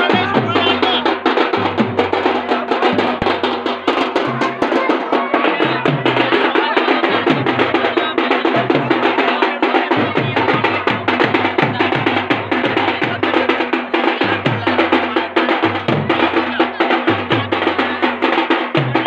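Folk drumming: a dhol and hand-held frame drums playing a fast, dense rhythm with deep bass strokes.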